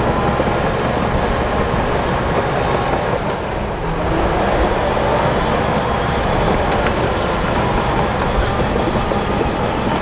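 Shantui DH17 crawler bulldozer pushing dirt: its diesel engine working steadily under load, with the clatter of its steel tracks.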